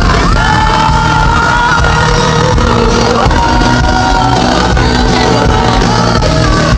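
Live pop music played loud through an arena PA, recorded from within the audience: a steady beat and bass under long held sung notes, with the crowd shouting along.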